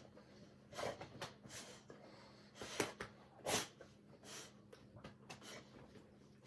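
A dog snorting and huffing in short breathy bursts, about eight of them, while playing.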